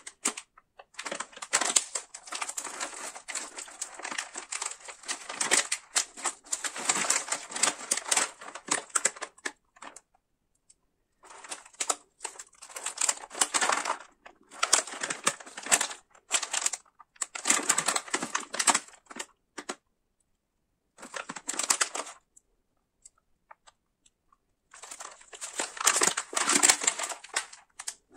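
A crinkly plastic snack bag of peanuts crackling as gloved hands squeeze and turn it, in bursts of several seconds with short silent pauses. Near the end, scissors snip into the top of the bag.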